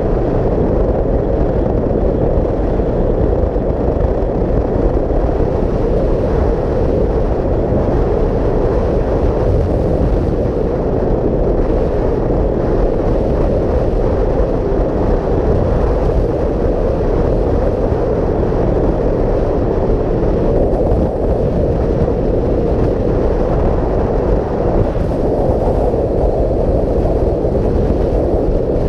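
Steady wind rush over the microphone at road speed, over the low, even drone of a Kawasaki Vulcan 900's V-twin engine cruising.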